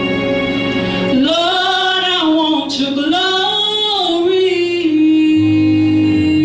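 A woman sings a worship song over steady instrumental chords. About a second in, her voice enters with a bending, ornamented run, then holds one long note from about four seconds in.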